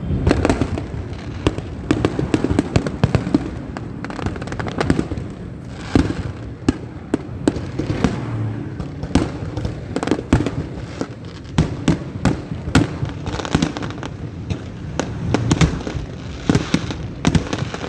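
Fireworks going off in a rapid, irregular series of bangs and crackles.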